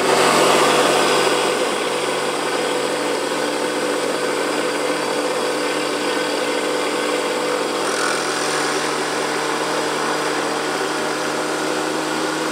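Small Kamui cue-repair lathe switched on, its motor and spindle then running steadily with a hum and a hiss, while the tool shapes the new cue tip.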